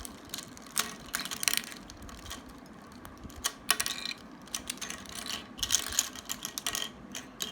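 Plastic pieces of a 3x3 Rubik's cube clicking and clattering in irregular clusters as the cube is pried apart by hand.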